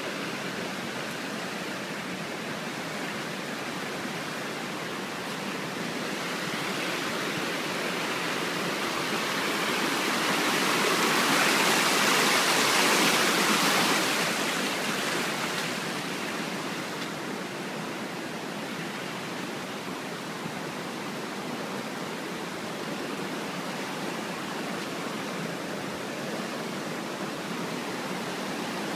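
Muddy, flood-swollen creek rushing and churning over rocks beside the road, a steady roar of water. It grows louder towards the middle as the water comes close, then settles back to a steady rush.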